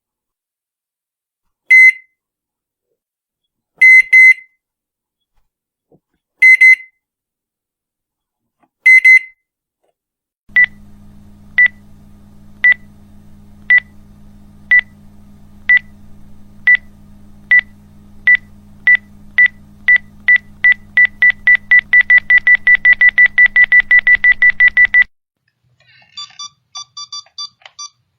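Electronic button beeps from several separate effects: short high beeps about two seconds apart, then a run of beeps over a low hum that speeds up from about one a second to a rapid stream before cutting off suddenly. Near the end a quick patter of beeps in a different, two-pitched tone.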